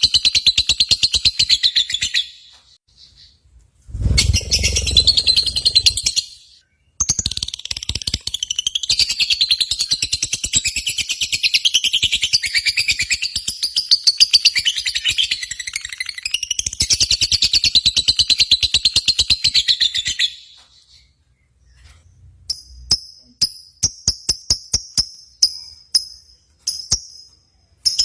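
Lovebird singing in long, rapid, high-pitched chattering bouts of several seconds each, with short pauses between them, a low rumble under one bout about four seconds in, and a series of short sharp chirps near the end.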